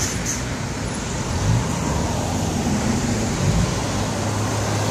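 Road traffic: cars driving past close by, with a steady low engine note through the second half.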